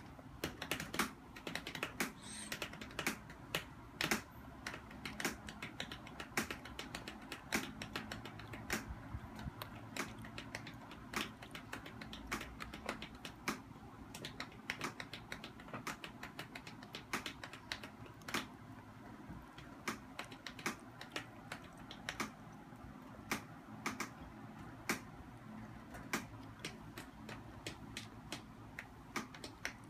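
Plastic fork and spoon clicking and scraping against a plastic bowl of noodles in broth, in sharp irregular clicks a few times a second.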